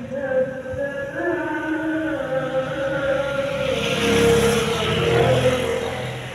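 Chanted vocal music with a held, wavering melody. About four seconds in it is joined by a swell of vehicle noise, a rushing sound with a low rumble, which fades again near the end.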